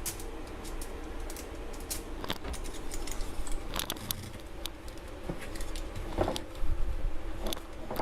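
Irregular light clicks and clinks of a metal scoop working cookie dough onto a foil-lined pan, with a few duller knocks.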